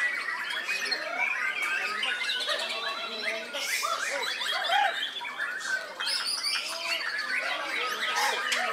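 Several white-rumped shamas singing at once, their whistles, chirps and harsh notes overlapping in a dense, unbroken chorus.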